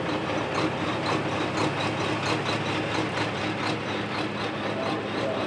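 Several racing trucks' heavy diesel engines running steadily as the trucks move along the track.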